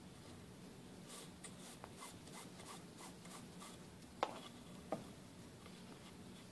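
Nylon paracord being threaded and pulled through a knot by hand: a run of faint rubbing strokes of cord on cord, then two small sharp clicks a little under a second apart.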